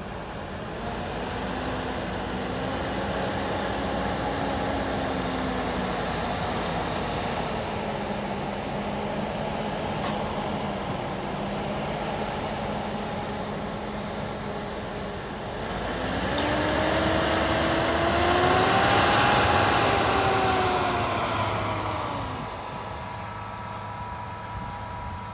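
New Holland T8 tractor's diesel engine running under load as it pulls a ripper bedder through the soil. The engine note swells as the tractor comes close about two-thirds of the way in, rising in pitch and then falling away.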